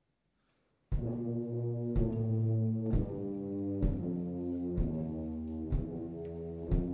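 Concert wind band: after a moment of silence, about a second in the full band comes in with loud held brass chords over deep tubas, with a percussion stroke about once a second.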